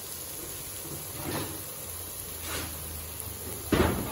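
Faint steady hiss of chicken cooking in a pot, with two soft swishes and a louder thump near the end.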